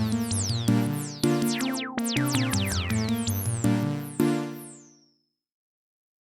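Sequential Take 5 analog polyphonic synthesizer playing a series of struck chords, each with a bright downward sweep on top that dies away. The last chord fades out about five seconds in, then silence.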